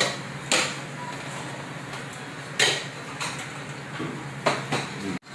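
Three sharp clinks of tableware being set down, spread out over a few seconds, over a steady low room hum.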